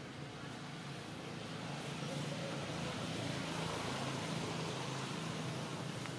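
A motor vehicle's engine running with a steady low hum, getting louder about two seconds in.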